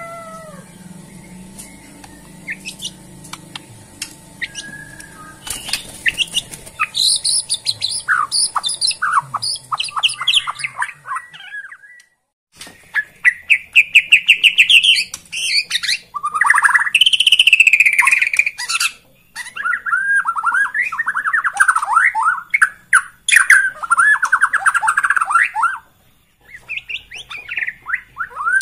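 White-rumped shama (Borneo murai batu) singing: after a quieter start, about five seconds in it breaks into loud, rapid trilled and chattering song phrases. The singing pauses briefly near the middle and again near the end.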